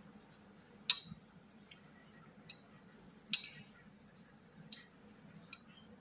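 A few sharp clicks and ticks of a washing machine inlet hose's metal-and-plastic tap adapter being handled and fitted by hand. Two clicks stand out, about a second in and just past three seconds, with fainter ticks between them.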